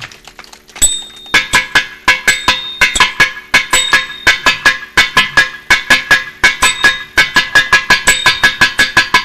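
Thavil drum solo in a Carnatic thani avarthanam. After a brief lull with faint strokes, a fast, even run of sharp, ringing drum strokes starts about a second in and keeps going.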